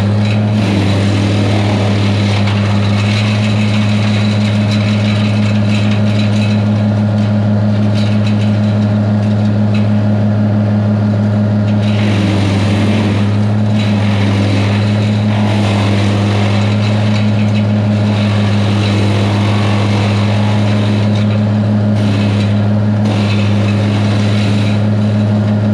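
Farm tractor engine running at a steady speed, a constant low drone with rattly noise above it.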